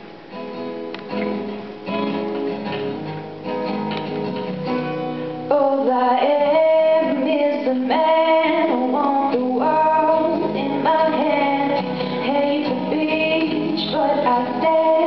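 Acoustic guitar being picked and strummed on its own; about five seconds in, a young woman's singing voice comes in over it and the performance grows louder.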